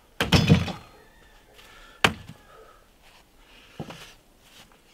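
Heavy wooden thumps and knocks from a hand-hewn log being handled on the log wall. A loud cluster of thumps comes near the start, a single sharp knock about two seconds in, and a lighter knock near the end.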